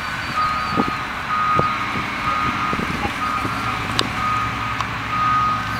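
Electronic beeping at one steady pitch, about once a second, over a low steady hum, with a few short knocks; the pattern of a vehicle's reversing alarm.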